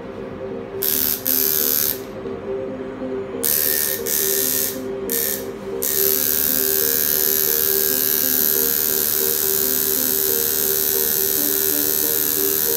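Coil tattoo machine buzzing as it works into the scalp, switched on and off in short bursts during the first few seconds, then running steadily from about six seconds in.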